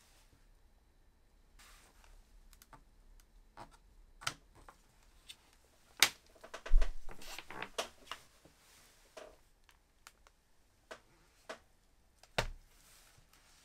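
Clicks and knocks of a CrowView Note laptop-style monitor being handled: a few light key and trackpad clicks, a busy cluster of knocks and rattles about six to eight seconds in, and one sharp knock with a thud near the end.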